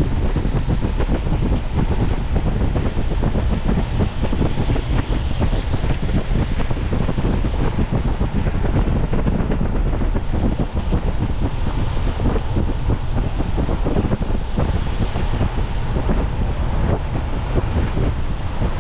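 Wind buffeting the microphone of a moving car, over a steady low rumble of the car on the road.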